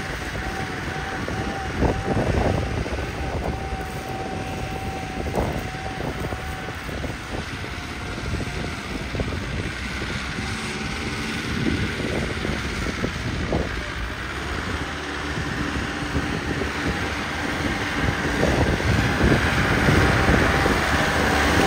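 Turbocharged, modified New Holland 5630 tractor's diesel engine running, with a thin steady whine above the engine noise for the first several seconds and again near the end, getting louder over the last few seconds.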